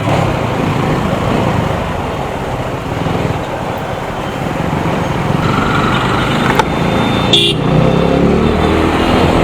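TVS Apache RTR 200 motorcycle ridden through city traffic: its single-cylinder engine running under wind and road noise, with other vehicles around it.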